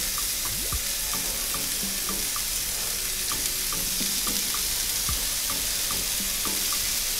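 Hot oil sizzling steadily in a non-stick frying pan as dried shrimp fry in it, with the freshly added chopped onion, garlic, chillies and ginger.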